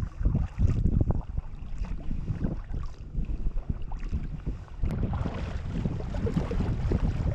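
Wind buffeting the microphone over the water sounds of a sea kayak under way, gusting unevenly and becoming steadier and fuller from about five seconds in.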